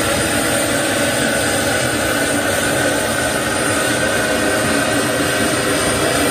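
Loud, steady jet engine noise with a constant whine.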